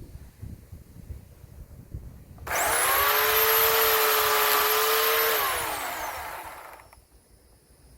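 Bauer 16-inch corded electric chainsaw (14.5 amp) switched on about two and a half seconds in, its motor and chain whining at a steady pitch for about three seconds. It is then released and winds down, falling in pitch and dying away about seven seconds in.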